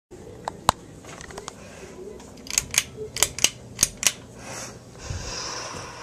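Eight or so sharp clicks, most in a quick cluster in the middle, then a soft rustle near the end. Under them runs the faint low hum of a Harbor Breeze Breezeway 30-inch hugger ceiling fan.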